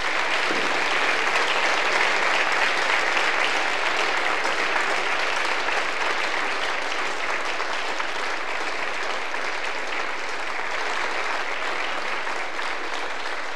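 Applause from a seated chamber of people: sustained, even clapping that starts suddenly and tapers off slightly toward the end.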